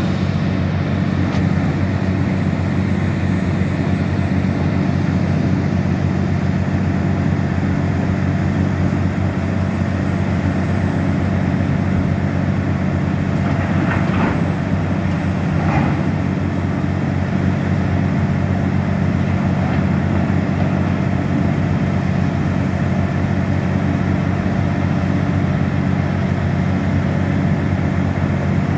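Heavy diesel engines of a hydraulic mining excavator and a rear-dump haul truck running steadily in a deep, even drone. Two brief, noisier swishes come about halfway through.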